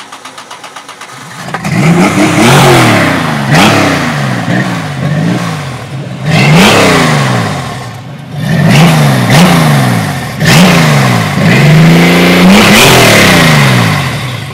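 A Chevrolet 4.3 V6 in a tube-frame sand rail cranks on the starter for about a second and a half, catches, and is then blipped again and again, each rev rising and falling in pitch. Near the end it is held at a longer rev before the sound drops away.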